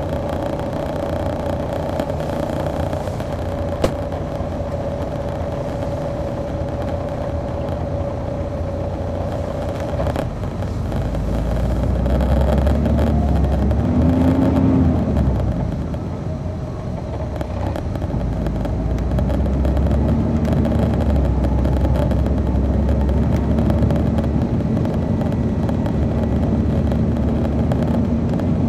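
A 2002 MCI D4000 coach's Detroit Diesel Series 60 engine heard from on board the bus. It runs steadily at first, then pulls harder and louder about eleven seconds in with its pitch climbing. It eases off around sixteen seconds as the Allison automatic shifts up, then pulls steadily again.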